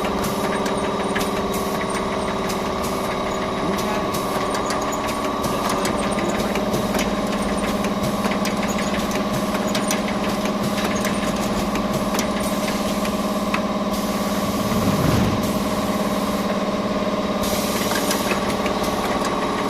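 Small water filling line running under test: a steady machine hum with many small clicks and knocks from the mechanism.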